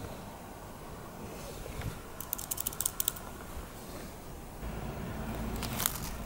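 Typing on a keyboard: a quick run of about eight sharp key clicks lasting about a second, two seconds in, and one more click near the end. A low hum comes in about two-thirds of the way through.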